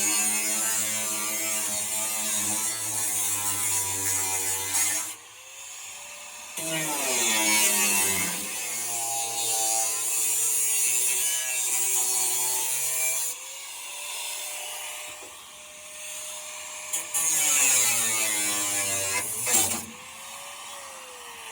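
Power drill boring into a truck's door lock in several runs, its motor pitch dropping under load and rising again as the bit frees up, then winding down near the end. The bit is wearing down on the lock.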